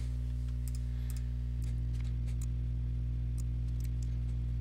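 Soft background music of held chords, the chord changing about a second and a half in, with a few faint clicks over it.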